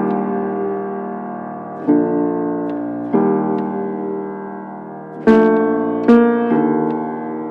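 Slow piano music: sustained chords struck about every one to two seconds, each left to ring and fade before the next.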